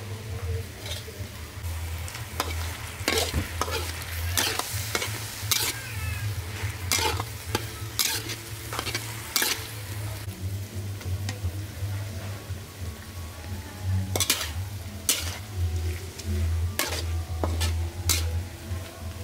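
A metal spatula scraping and clanking against a steel wok as pork stir-fries in sizzling oil, in irregular strokes that thin out for a few seconds around the middle. A low steady hum runs underneath.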